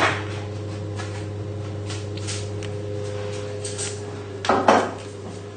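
Kitchen handling sounds of a saucepan and utensils being moved: a sharp knock at the start, faint clicks, and two louder knocks a little before the end, over a steady low hum.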